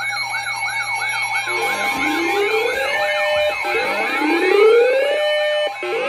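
Weather alert radios sounding their siren-style alarms together, set off by a NOAA Weather Radio High Wind Warning: a fast up-and-down yelp of about three cycles a second over steady tones, joined about a second and a half in by slower rising wails that repeat about every two seconds.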